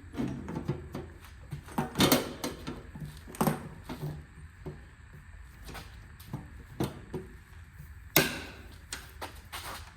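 Irregular knocks and clanks of a metal ammo-can toolbox being handled and fitted with its lid. The loudest knocks come about two, three and a half and eight seconds in.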